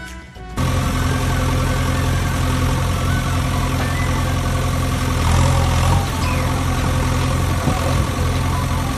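An engine idling steadily with a low, even rumble, cutting in about half a second in.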